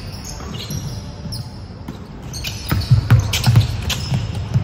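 Basketball bouncing on a hardwood gym floor, with a quick run of dribbles in the second half, and sneakers squeaking on the court.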